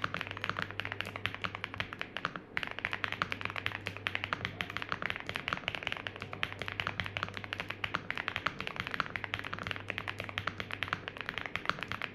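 Fast typing on a Vortex NS75 mechanical keyboard with tape mod, MKID Merpati factory-lubed linear switches and ABS double-shot keycaps: a dense run of quick keystrokes, with a brief pause about two and a half seconds in.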